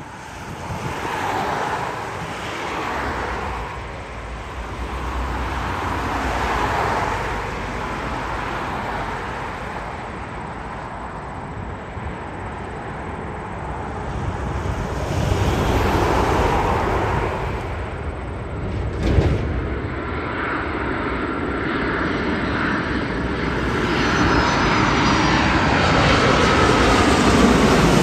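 Jet airliner engines roaring as a plane passes low, the rumble swelling and easing, with a whining tone that falls in pitch near the end as it goes by. A brief knock about two-thirds of the way through.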